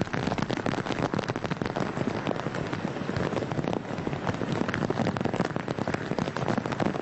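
Rain pattering densely, a steady crackle of many drops.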